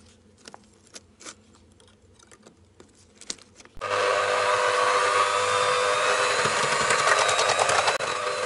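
Faint scattered clicks of binding wire being twisted around rebar. About four seconds in, an electric drill with a paddle mixer starts abruptly and runs steadily, stirring ash-sand-cement mortar in a bucket.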